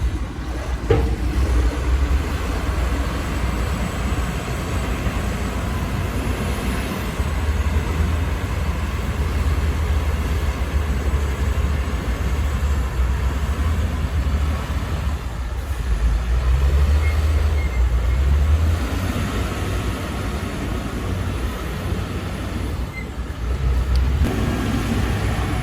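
Heavy diesel earthmoving machinery running under load: a steady deep engine rumble that swells and eases, with a short sharp click about a second in.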